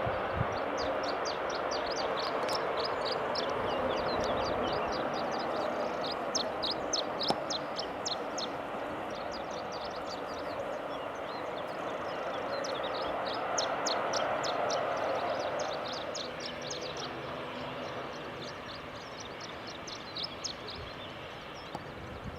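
Aircraft engine noise from an airliner at the airport, a steady sound that fades away after about sixteen seconds, with small birds chirping in quick runs of high notes throughout.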